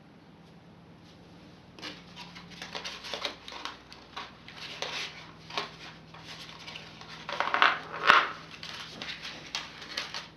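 Hands rustling, scraping and clicking at toy packaging to free a small flocked figure. It starts about two seconds in and is loudest a little before the end.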